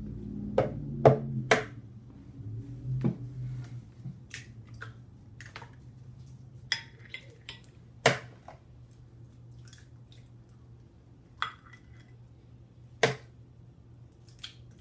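Eggs being cracked on the rim of a plastic blender jar, with the shells set down on a plate: scattered sharp taps and clicks, a quick cluster about a second in being the loudest, over a faint low steady hum.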